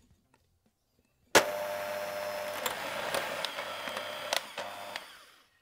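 Electric hand mixer switching on about a second in and running steadily, its wire beaters whipping cream in a glass bowl, with a few sharp clicks; the sound fades out near the end.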